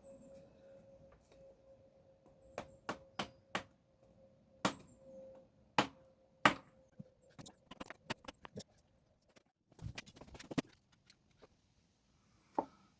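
Rubber or wooden mallet knocking on a block of wood held against a crusted-on part of a motorcycle engine: about seven sharp blows over a few seconds, then lighter taps and clatter as the part is worked. A faint ringing tone dies away at the start.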